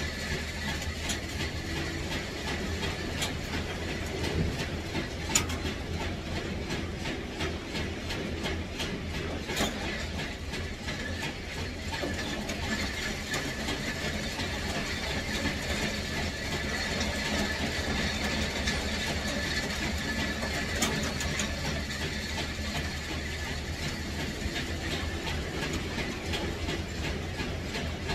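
Steady mechanical running noise with a low hum, a faint steady high tone and scattered sharp clicks.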